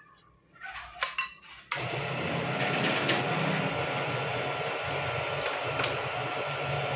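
A few metal clinks, then a milling machine is switched on about a second and a half in and runs with a steady hum.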